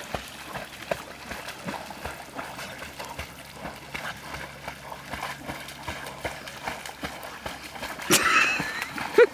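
Water sloshing and splashing as English Springer Spaniels paddle through a lake, with irregular small splashes. Near the end a short, louder high-pitched cry cuts through.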